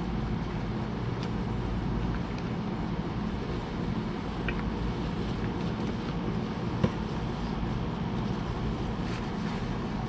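Steady low machine hum, with a few faint clicks and crinkles of cardboard and bubble wrap being handled as a boxed handheld vacuum is unpacked; one sharper click comes about seven seconds in.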